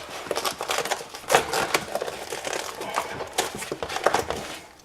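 Irregular plastic clicks and rustling from hands working a fridge freezer fan and its wiring plug, as the wires are worked out of the plug.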